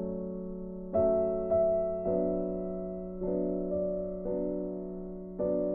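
Background music played on a keyboard: sustained notes with a new note or chord struck about once a second, each fading away.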